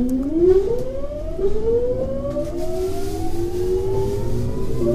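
Kintetsu 3200 series electric train accelerating away, its VVVF inverter and traction motors giving a whine of several tones that rises steadily in pitch, stepping up sharply about half a second and a second and a half in, over the low rumble of the running gear.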